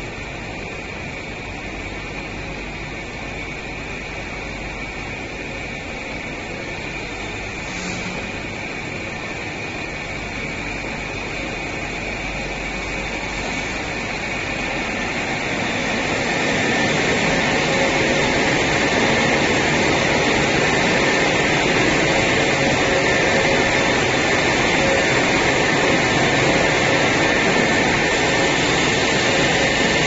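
Steady whirring drone of air-conditioner units and test machinery running on a factory production line, with a steady high whine over it. It grows louder about halfway through and stays loud.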